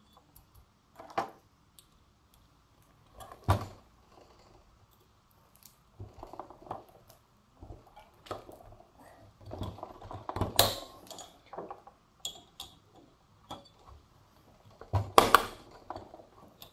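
Irregular metal clicks and clinks from a spring-loaded valve keeper insertion tool set onto a valve spring retainer in a 139QMB scooter cylinder head and pressed down to seat the split keepers on the valve stem, with light handling rustle between. The sharpest click comes about ten and a half seconds in.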